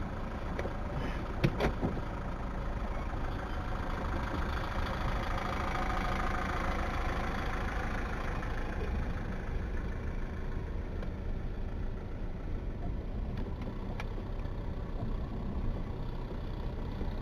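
Vehicle engine running with road noise while driving along. There are a couple of sharp knocks about a second and a half in, and the engine and road noise swells and then eases off again between about five and nine seconds in.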